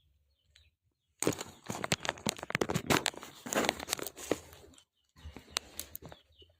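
Parcel packaging being handled, crinkling and tearing with many sharp crackles. It starts about a second in, stops briefly near five seconds, then goes on more sparsely.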